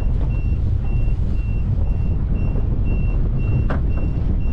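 An electronic alarm on a small fishing boat beeping at one steady pitch, about two beeps a second, over a constant low rumble. A single sharp knock comes about three and a half seconds in.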